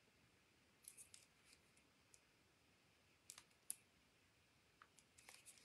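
Near silence, with a few faint, short clicks from a small paper die-cut and a liquid glue bottle being handled as glue is applied.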